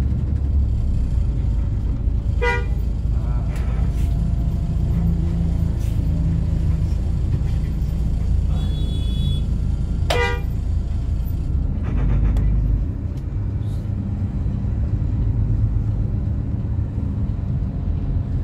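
Steady low rumble of street traffic, with two short vehicle horn toots, one a couple of seconds in and another about ten seconds in.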